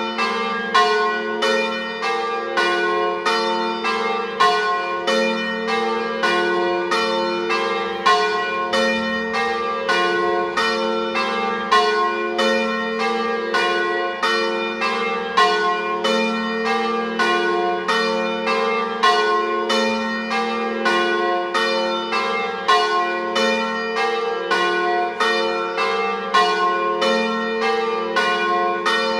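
Full peal (plenum) of swinging church bells, cast by Cavadini of Verona in 1926 with one by De Poli in 2022 and rung in the Treviso system. Several bells of different pitch strike in a running, overlapping pattern of about two strikes a second, each note ringing on under the next.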